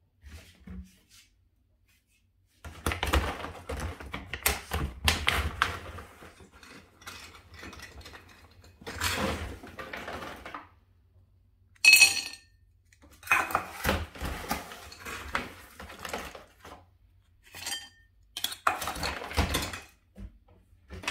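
Dry dog kibble being scooped and poured into a ceramic dog bowl: several bouts of rattling clatter, with one ringing clink of the ceramic bowl about midway.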